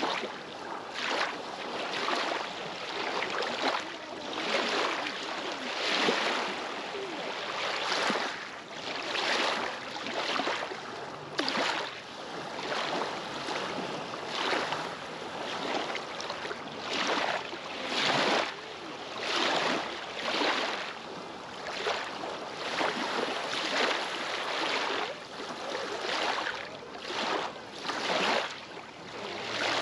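Small lake waves lapping and splashing against a rocky shore in a steady rhythm, a wash of water about every second or so.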